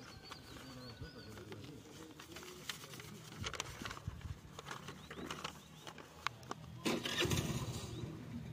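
Sheets of paper rustling and crinkling as they are unfolded and handled, with a motor vehicle engine starting and running about seven seconds in.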